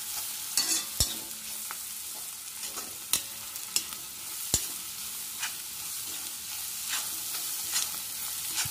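Vegetables sizzling in oil in an iron kadai while a metal spatula stirs and scrapes them around. The spatula clacks sharply against the pan a handful of times.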